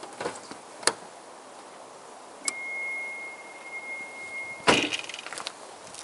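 Car warning buzzer sounding one steady high tone for about two seconds, then cut off by a loud clunk with rattling; a sharp click comes about a second in. The car's electrics are live on the freshly reconnected battery as the headlights are switched on.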